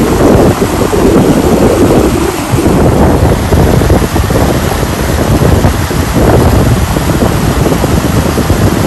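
Loud, steady rushing and churning of river white water spilling over a rock ledge, with a deep rumble and a gently surging level.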